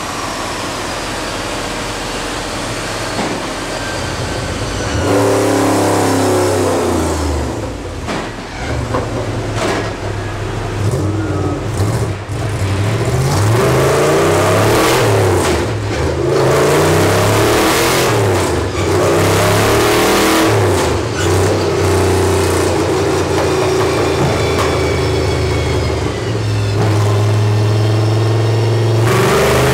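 Super 6000 stock car's V8 race engine running on a chassis dynamometer. The engine note rises and falls again and again as it is revved, with steadier held speeds near the start and again near the end.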